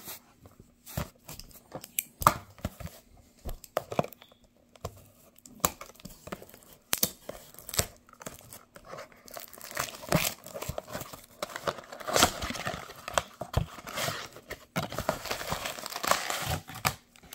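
Cellophane wrap and foil trading-card packs crinkling and tearing by hand as a card blaster box is opened, with scattered clicks and knocks from the cardboard box. The crinkling is sparse at first and gets thicker about ten seconds in and again near the end.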